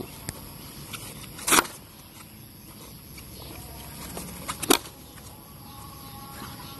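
Two sharp clacks of field hockey sticks striking a hard hockey ball, about three seconds apart: the ball slapped away and then stopped on a reverse stick. A couple of fainter clicks come between.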